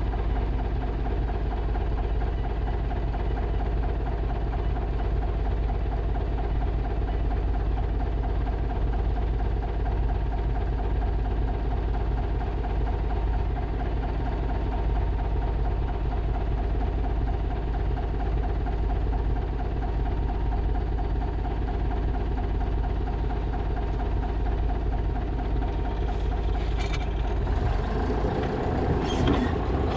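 Engine of a 1963 BM Volvo LM225 wheel loader running steadily. In the last few seconds there are metallic clanks and rattles, and the engine note changes.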